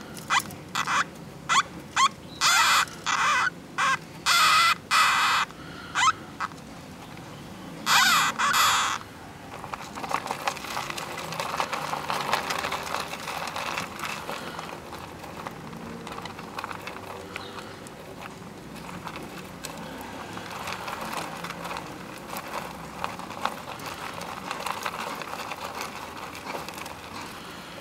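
Hamsters squeaking: a quick run of short, sharp, high-pitched calls, ending in a longer call about eight seconds in. After that, soft rustling and crackling in the wood-chip bedding as the mother hamster moves about over her pups.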